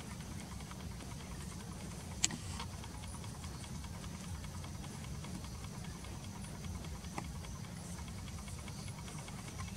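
Steady low rumble of outdoor background noise with a faint hiss, broken by one sharp click a little over two seconds in and a fainter one near the end; no animal calls.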